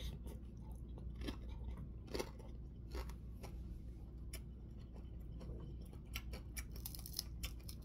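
A person chewing and eating fish with the hands: faint, irregular mouth smacks and small crunches, coming closer together near the end.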